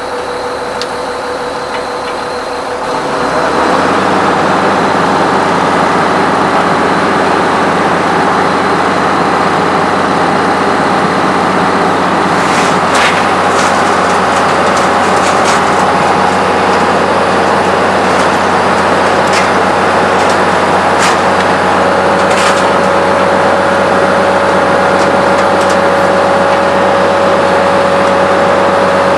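Heavy diesel engine idling with a low, even pulse, then about three seconds in speeding up to a louder, steady run that holds. A few sharp knocks sound over it later on.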